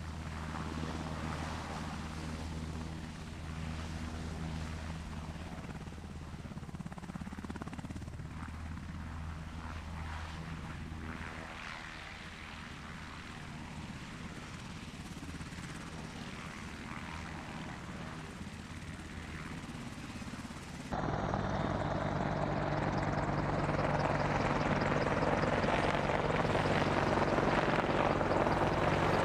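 UH-60 Black Hawk helicopter touching down and running on the ground, a steady drone of turbines and rotor whose lowest hum weakens about halfway through. About two-thirds of the way in it cuts abruptly to louder, steady helicopter noise as an AH-64 Apache flies low over the field.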